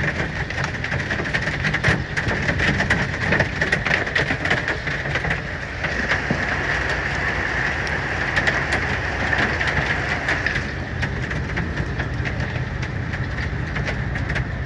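Hail pelting the roof of a semi truck's cab, a dense, continuous clatter of many small ice impacts over a low steady rumble.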